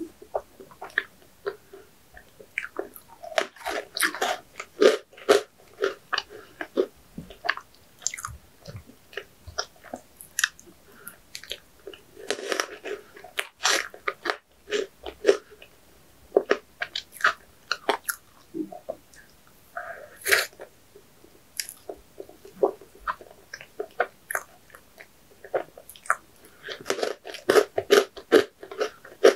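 A person biting and chewing food close to the microphone: irregular crunches, wet mouth clicks and chewing sounds, with clusters of louder bites every few seconds.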